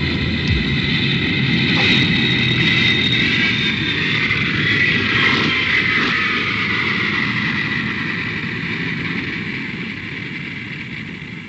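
Jet airliner engines: a high whine over a broad rush, loudest in the first half and then fading away over the last few seconds.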